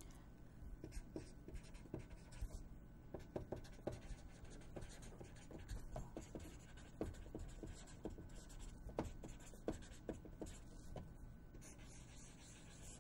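Felt-tip marker writing and drawing on a sheet of paper, a faint, irregular run of short nib strokes and taps as letters and lines are formed.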